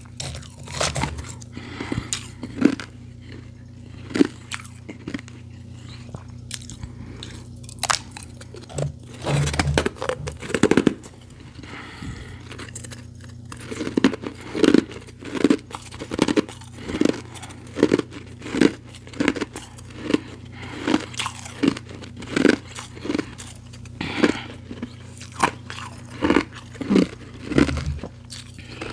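Close-miked chewing of powdery ice, soft crunches. The crunches come unevenly at first, then settle from about halfway through into a steady chewing rhythm of about two a second.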